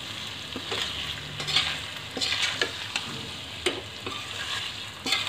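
A steel spatula is stirring thick paneer masala gravy in a stainless-steel kadai, scraping the pan with each stroke about twice a second. A low sizzle runs underneath as the gravy cooks.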